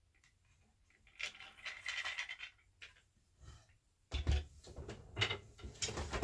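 Wooden boat shuttles handled against a weaving loom: a rustling scrape about a second in, then from about four seconds a run of knocks and clatters as a shuttle is picked up and set in place.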